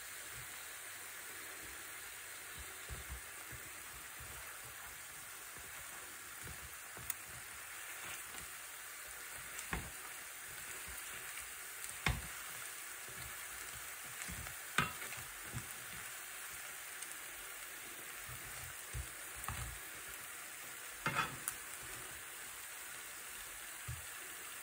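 Sugar-coated turon rolls sizzling softly in shallow oil in a nonstick frying pan over low heat. Now and then there is a short sharp click of tongs knocking against the pan, about six times.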